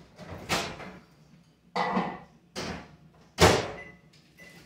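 Four short bangs within about three seconds, the last the loudest.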